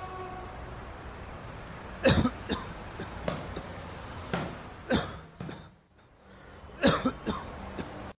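A man coughing again and again in short fits, with the loudest coughs about two seconds in and near the end.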